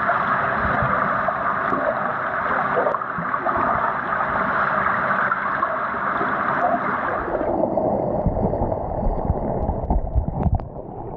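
Muffled underwater rush and gurgle of swimmers' strokes and kicks, heard with the microphone under the pool's surface. About seven and a half seconds in the brighter part of the sound drops away, leaving a duller rumble, with a few sharp knocks near the end.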